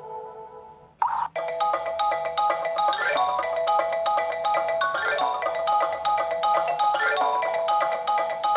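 Samsung Galaxy GT-S7562L ringtone playing: a marimba-like melody of quick mallet notes, with a rising run that repeats about every two seconds. It starts about a second in, after the previous ringtone fades out.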